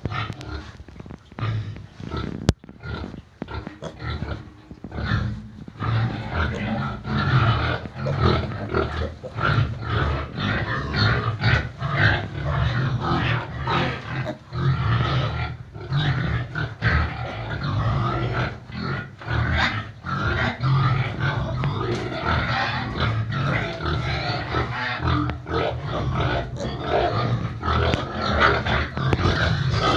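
Piglets grunting and calling in a steady run of short, overlapping calls, busier and louder from about six seconds in.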